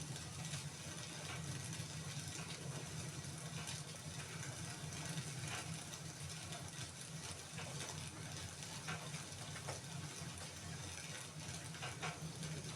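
Wood fire in a fireplace crackling, with scattered faint pops over a steady low hum.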